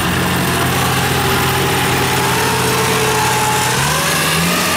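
Kubota DC-70 combine harvester's diesel engine running steadily as the machine travels, its note stepping up in pitch near the end.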